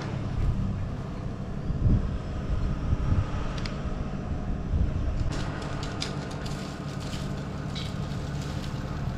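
Chainsaw idling steadily, with a few sharp clicks and knocks over it.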